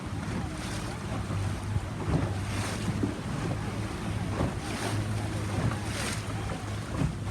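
Boat motor running steadily under way, with wind on the microphone and water splashing against the hull about four times.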